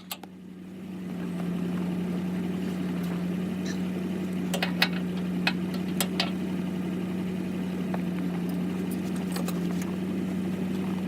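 An engine idling steadily, a low even hum that builds up over the first second or so, with a few scattered light clicks and taps over it.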